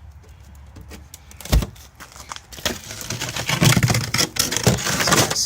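Frozen food packages being rummaged through in a cooler: a single thud about a second and a half in, then a few seconds of rustling plastic with clattering knocks.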